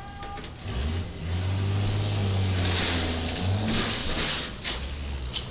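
Motorhome driving under a low railroad bridge, its engine a low steady hum from about a second in. Over the hum come two stretches of harsh scraping noise, between about two and a half and four and a half seconds in, as the body strikes the bridge. A few sharp knocks follow near the end.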